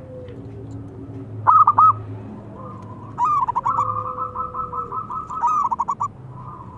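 Zebra dove (local perkutut) cooing. Three loud, quick coos come about a second and a half in, then from about three seconds a long, fast run of short staccato coos lasting about three seconds.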